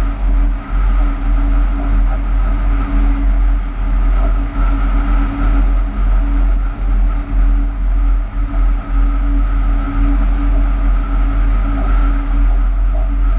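Cab noise of a Class 186 TRAXX electric locomotive running light: a steady drone, with a constant hum over a heavy low rumble that wavers a little.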